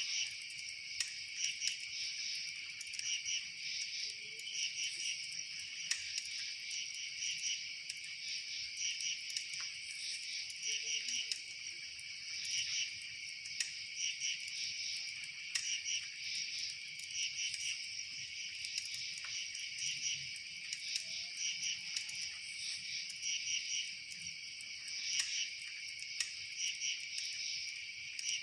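A steady chorus of chirping insects, crickets or similar, with rapid pulsed trills overlapping continuously, and faint scattered clicks now and then.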